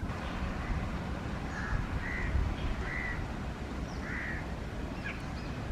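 Crows cawing, four or five short caws spread through the clip, over a steady low rumble.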